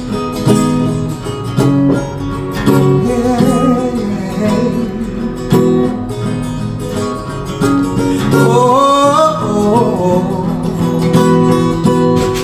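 Acoustic guitar with a capo on the neck, strummed in a slow song introduction, each chord left to ring.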